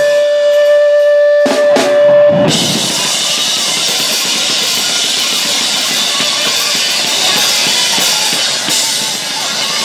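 Live rock band playing loud on drum kit and distorted electric guitar. A single held note rings for about the first two and a half seconds, with a few drum hits. Then the sound turns into a dense, noisy wash of guitar and cymbals.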